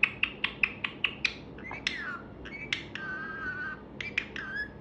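Pet parrot making a quick run of sharp clicks and short chirps, then a falling chirp, a short steady whistled note about three seconds in, and a few more clicks near the end.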